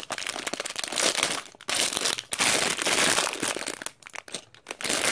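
Plastic Lego parts bags crinkling as they are handled and turned over, in stretches broken by short pauses, with a quieter patch near the end.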